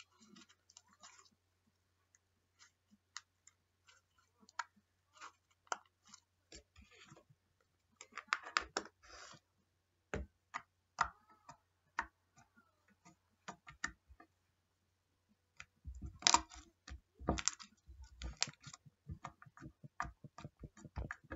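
Slime being handled: a string of irregular small clicks and pops, denser in two spells about eight seconds in and again around sixteen to eighteen seconds.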